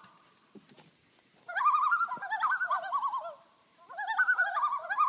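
Common loons giving the tremolo call, a rapid quavering, laugh-like call, with two birds overlapping at different pitches. There are two bouts: the first begins about a second and a half in, the second about four seconds in and runs past the end.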